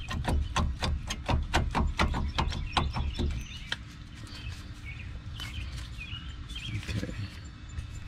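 2001 Chevy Tahoe front brake caliper clicking and rattling against its mount as it is wiggled back and forth to free it from the rotor, about four or five clicks a second, stopping about three seconds in. Faint bird chirps follow.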